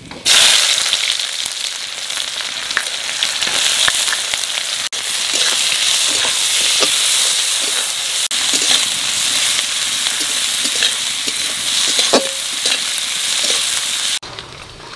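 Sliced onion dropped into hot oil with cumin seeds in a metal kadai, sizzling loudly the moment it lands and then frying steadily while a spatula stirs and scrapes against the pan. The sizzle cuts off abruptly near the end.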